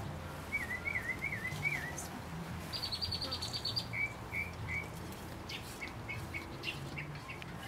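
Songbirds singing: a warbling phrase in the first two seconds, a fast high trill about three seconds in, then short repeated chirps.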